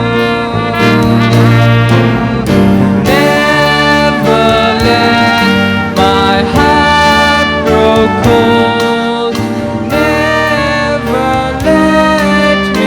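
Trumpet playing a slow hymn melody in long held notes, with accompaniment underneath.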